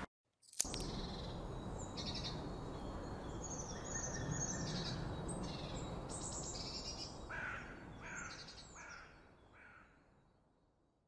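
Several short bird calls and chirps repeat over a steady outdoor background noise, then fade out over the last few seconds.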